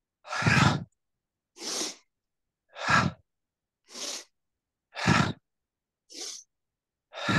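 A woman breathing hard and rhythmically with exertion during an abdominal exercise: loud, puffing exhales alternating with softer inhales, about one breath sound a second.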